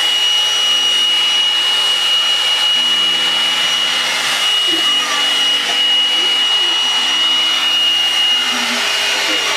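Hot air brush running: a steady rush of blown air with a high, even fan whine.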